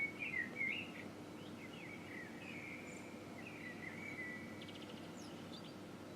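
Eurasian blackbird singing its territorial song: a loud fluting phrase in the first second, then quieter warbling that ends in high, thin squeaky notes.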